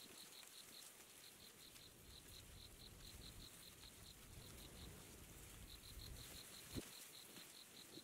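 Faint insect chirping: a fast run of short high notes at one pitch, about six a second, broken by brief pauses. A low rumble runs through the middle, and a single soft thump comes near the end.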